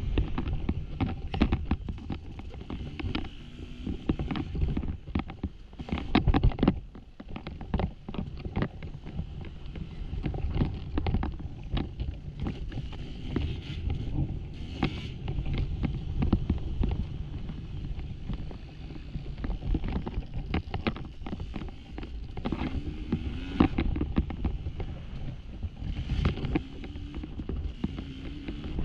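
Dirt bike engine running at low to middling revs over a loose, rocky trail, its pitch rising and falling a few times near the end. Frequent sharp knocks and clatter from rocks and the bike hitting the ground run throughout.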